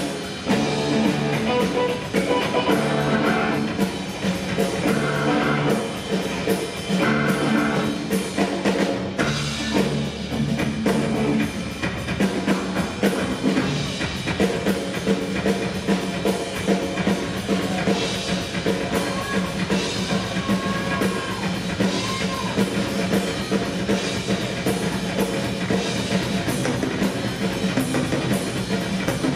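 Live rock band playing loudly: a full drum kit with cymbals, electric guitar and a steady low sustained note underneath.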